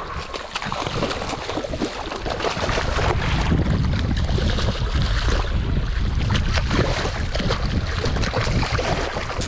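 Wind rushing over the microphone, with water splashing and irregular short knocks.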